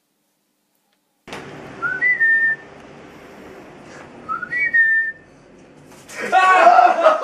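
Two short whistles from a person, each sliding up and then holding a steady note, about two and a half seconds apart. Near the end a person bursts out laughing.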